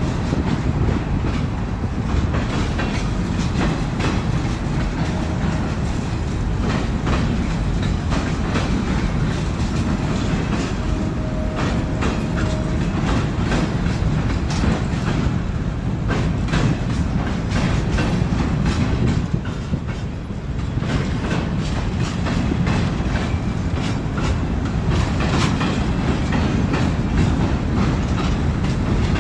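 Long train rolling past, its cars' wheels clacking steadily over the rail joints over a continuous low rumble.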